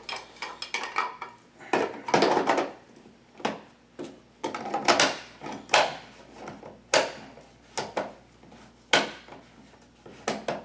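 Hard plastic parts of a Big Boss Swirlio frozen-fruit maker clicking, knocking and scraping against each other as they are fitted and twisted together on their threads. The knocks come irregularly, about a dozen, some with a short scrape.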